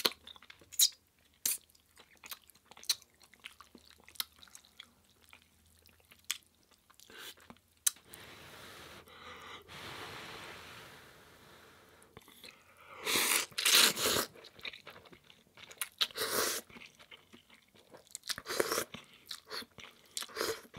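Close-miked eating of instant ramen noodles: wet mouth clicks and chewing, a soft steady breathy hiss in the middle, then loud slurps of noodles three times in the second half.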